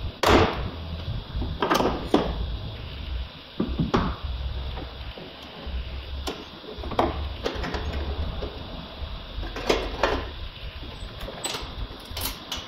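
Irregular clicks, knocks and scraping of metal and plastic parts being handled inside the bare inner door of a VW Polo 9N3, while the rear window mechanism is worked on. The loudest knock comes just after the start.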